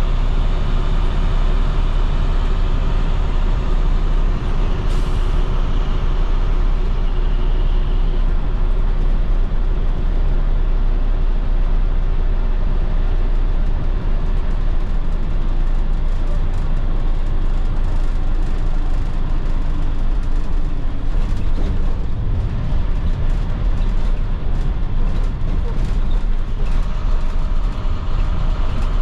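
2010 IC FE school bus's MaxxForce DT inline-six diesel running steadily while driving, with road noise. A brief sharp high sound comes about five seconds in.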